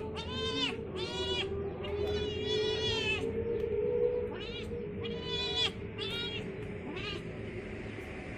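Domestic cats meowing over and over, about eight meows in quick succession, each rising then falling in pitch, as they beg to be fed.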